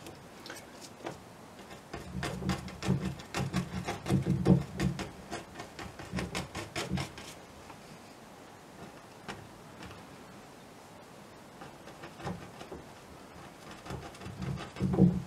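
Paintbrush dabbing and tapping against a canvas: a quick run of taps through the first half, a few scattered taps after, and another quick cluster near the end.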